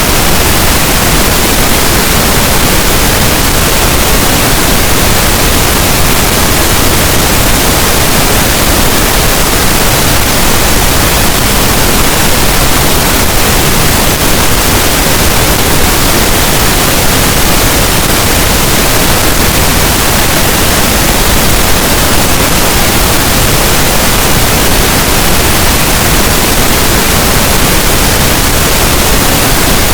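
Steady, loud pink noise: an even, unchanging hiss spread across all pitches, with no breaks or changes.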